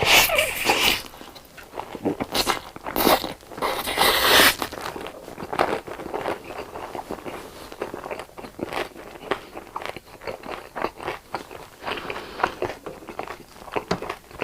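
Close-miked bites into crunchy food: three loud crunches in the first four or five seconds, then steady crunchy chewing.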